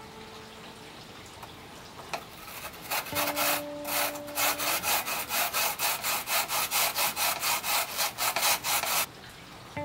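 A peeled raw potato grated by hand on a plastic grater: rhythmic wet rasping strokes, about three a second, starting about two seconds in and stopping shortly before the end.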